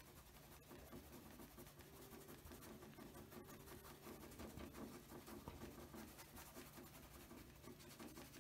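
Faint, rapid scratching of a paintbrush scrubbing paint onto canvas.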